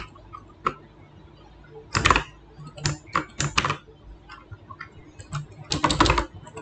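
Computer keyboard keys tapped in a few short, irregular bursts with pauses between.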